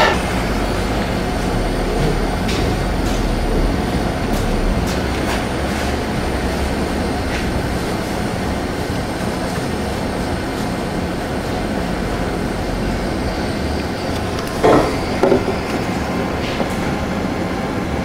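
Small butane torch burning with a steady rushing noise as its flame shrinks a heat-shrink butt connector over a repaired wire. Two short louder sounds come near the end.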